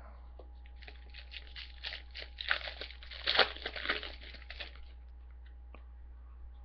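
Foil trading-card pack being torn open, its wrapper crinkling and crackling for about four seconds, loudest in the middle.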